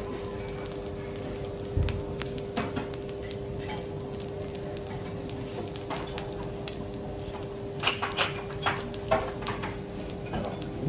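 Metal cooking utensils clinking and tapping on a teppanyaki griddle: a scattering of sharp clicks, several in quick succession near the end, over a steady low hum.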